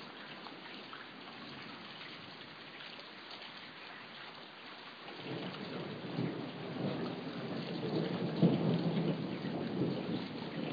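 Steady rain with a thunder rumble that rolls in about halfway through, swells, and is loudest shortly before the end.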